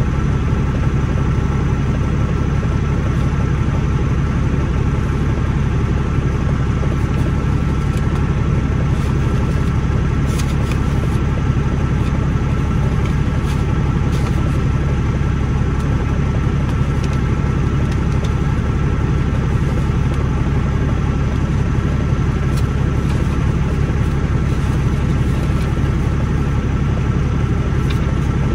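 Semi-truck diesel engine idling steadily, heard from inside the cab: an even low rumble with a thin steady whine above it.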